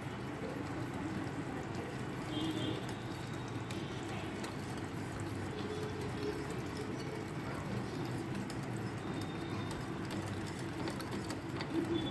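A spoon stirring thick semolina cake batter in a ceramic bowl: soft wet scraping with light clicks of the spoon against the bowl.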